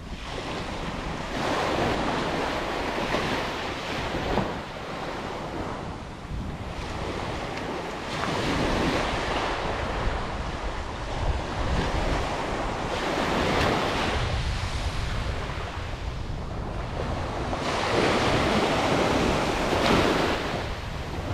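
Small surf breaking and washing up a sandy beach, swelling and ebbing every few seconds, with wind rumbling on the microphone.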